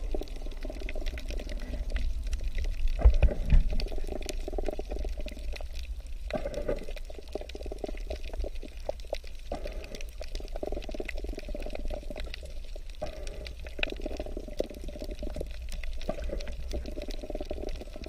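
Water gurgling and sloshing around an underwater camera, a muffled bubbling that swells and fades every second or two over a steady low rumble. A couple of heavier low thumps come about three seconds in.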